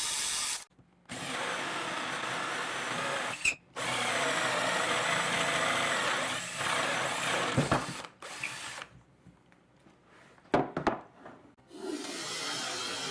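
Power drill boring into a wooden workbench top with a 3/4-inch Forstner bit. It runs steadily in several stretches broken by abrupt gaps, and a few sharp knocks come in a quieter stretch near the end.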